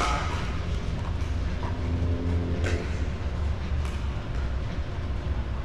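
Steady low rumble of a large indoor sports hall, with two sharp pops of a pickleball off paddle or court, about two and a half and four seconds in.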